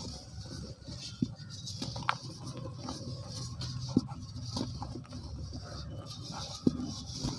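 Hands crumbling lumps of soft cement, the powder and grit pattering into a tub, with a few short sharp cracks as slightly harder bits break apart.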